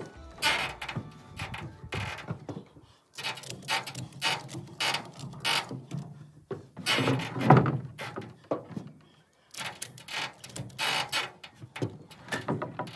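Irregular mechanical clattering: a string of short knocks, clacks and rattles, with the loudest cluster a little past the middle.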